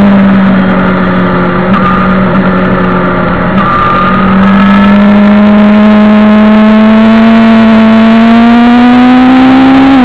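Suzuki GSX-R750 SRAD's inline four-cylinder engine running hard, heard on board the bike: revs held steady and a little quieter for the first few seconds, then climbing slowly in pitch through the rest as it drives on.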